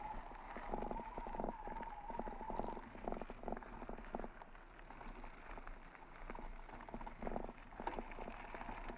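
Footsteps on a gravel path at a walking pace, a short scrape every few tenths of a second. A thin steady tone runs through the first two and a half seconds.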